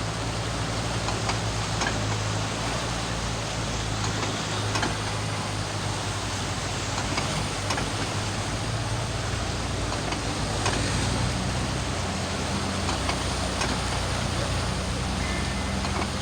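Motor vehicle engine running steadily, a low hum under a broad rushing noise, with a few faint clicks.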